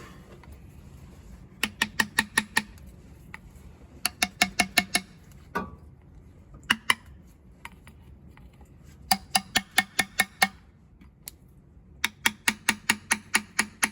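A hammer tapping a new tail shaft seal into the transmission's output housing: bursts of quick, sharp taps, about six or seven a second, coming in six runs of roughly a second each as the seal is driven in.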